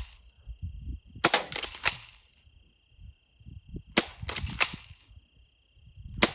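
Air gun shots fired at a microwave: a sharp pop about a second in and another about three seconds later, each followed by a few quick smaller clicks, with a third pop right at the end.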